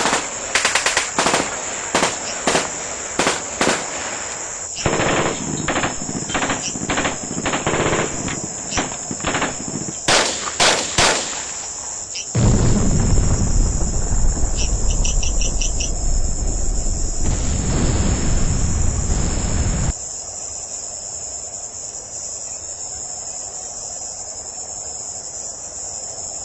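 Battlefield sound effects over steady cricket chirping: scattered gunshots, some in quick groups of two or three, through the first twelve seconds, then a loud low rumble that lasts about seven seconds and stops abruptly, leaving only the crickets.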